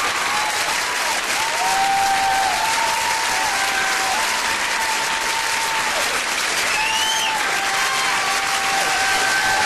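Theatre audience applauding steadily and loudly after a song.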